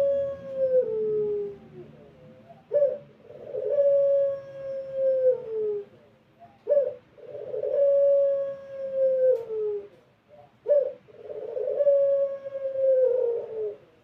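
Puter pelung, a domestic Barbary dove bred for its long coo, cooing: each call is a short note followed by a long drawn-out coo that falls in pitch at its end, repeated about every four seconds.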